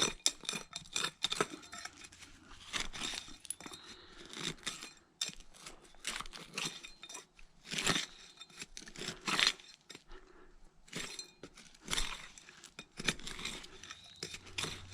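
Hand digger scraping and chopping into soil thick with broken bottle glass, with irregular clinks and crunches of glass shards.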